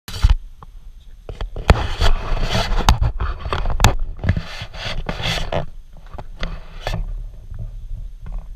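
Handling noise on a body-worn camera: scraping and rubbing against the microphone, with sharp knocks scattered through it, densest and loudest in the middle seconds, easing off toward the end.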